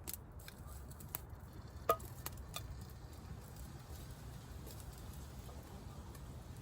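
Scattered light clicks and taps as hot campfire coals are piled onto a cast iron frying pan, with one sharper clink about two seconds in.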